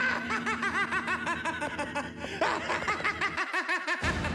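A cartoon villain's evil laugh: a man's voice laughing in a rapid run of 'ha-ha-ha' syllables, about five a second. It breaks off about two seconds in, then comes back in a second shorter burst.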